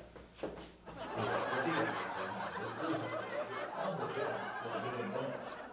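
Muffled men's voices chatting and chuckling from a nearby room, the words indistinct, starting about a second in.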